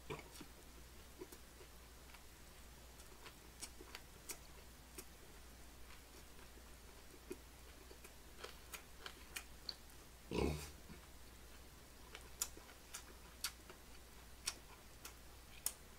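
A person chewing a mouthful of lettuce-wrapped grilled pork belly: faint wet smacking and clicking mouth sounds throughout, with one louder short mouth noise about ten seconds in.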